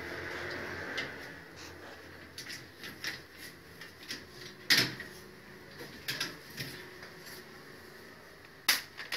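Scattered clicks and knocks of hard objects being handled, with two sharp, louder knocks about five seconds in and near the end.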